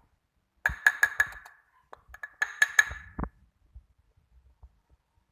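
A spoon clinking against a glass while stirring activated yeast. There are two runs of quick ringing clinks, one about a second in and another about two seconds in, then a single dull knock.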